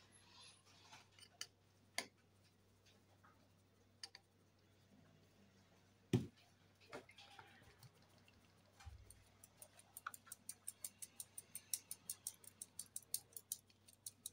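Metal fine-mesh sieve full of flour being tapped by hand to sift it. A few scattered knocks at first, one louder about six seconds in, then from about nine seconds a steady rapid tapping, about four taps a second.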